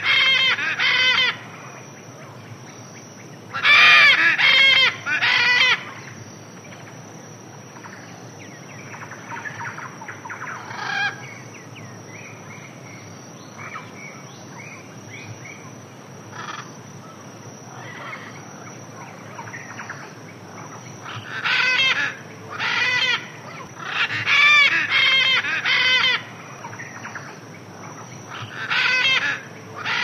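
Birds calling in loud bouts of repeated notes, each bout lasting a second or two, several times over, with fainter chirps between the bouts and a steady high-pitched tone underneath.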